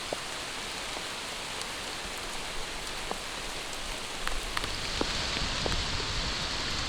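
Heavy rain coming down in a steady hiss, with scattered sharp ticks of single drops striking close by. A low rumble joins about four seconds in.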